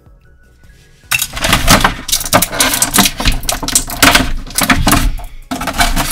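Crinkling and crackling of small plastic packaging as an action-figure accessory is handled and unwrapped, a dense run of sharp clicks and rustles starting about a second in.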